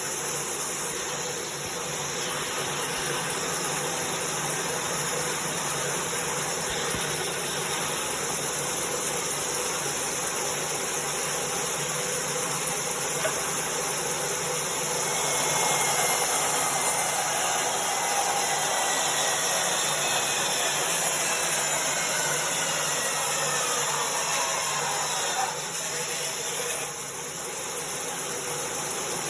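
24-inch resaw bandsaw running steadily, cutting a test piece of roughly 3-inch hardwood. About halfway through it gets a little louder and a faint falling whine runs for around ten seconds; near the end the level drops suddenly.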